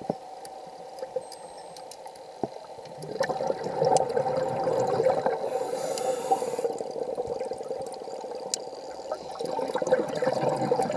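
Scuba diver breathing through a regulator underwater, heard through a camera housing: exhaled bubbles gurgling out in a stretch starting about three seconds in and again near the end, with a brief hiss between them. Scattered sharp ticks run throughout.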